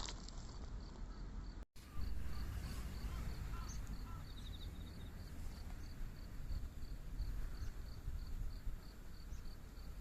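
A cricket chirping steadily in short, high, evenly spaced chirps, about four a second, over a low steady rumble. The sound cuts out completely for a moment nearly two seconds in.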